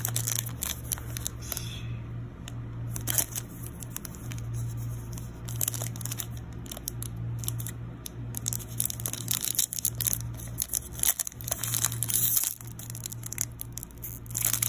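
Foil Pokémon booster pack wrapper crinkling and crackling in the hands as it is handled and torn open, with louder bursts of crackle about 3 seconds in and again near the end.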